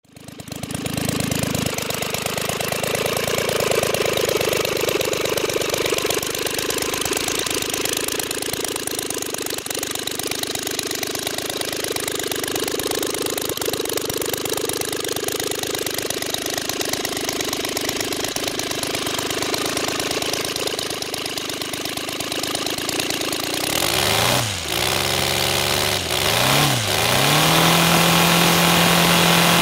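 Roto 130 FSI three-cylinder model aircraft engine running on a test stand, spinning a propeller. It is new and being run in, and it is starting to run smoothly after about two litres of fuel. It runs steadily, then about three-quarters of the way in its speed drops and rises twice before it settles at a higher, steady and louder speed.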